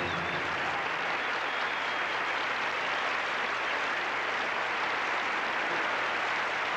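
Studio audience applauding steadily at the end of a stage number, with the last notes of the backing music dying away about a second in.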